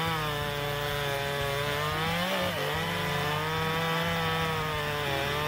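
Husqvarna 135 Mark II two-stroke chainsaw running at high revs, cutting wood. Its steady engine note dips briefly about two and a half seconds in and again near the end.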